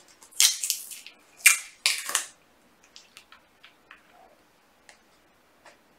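A small plastic sample bottle being handled and opened: three short, loud rustling scrapes in the first two seconds or so, then a scatter of faint light clicks and taps.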